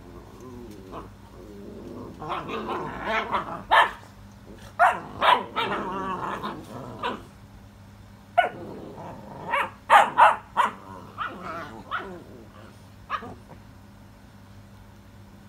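XL American Bully puppies play-fighting, growling and yapping in two spells of noisy calls, the second with sharper yelps, then dying down near the end.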